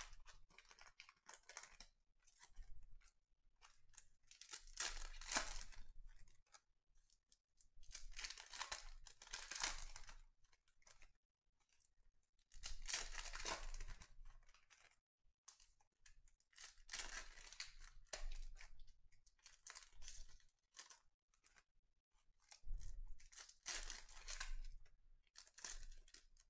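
Foil wrappers of Panini Certified basketball card packs being torn open and crinkled by hand, in repeated bursts of tearing and rustling a few seconds apart.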